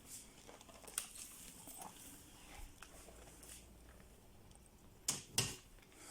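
Faint handling noise: scattered light clicks and rustles, with two sharper clicks about five seconds in.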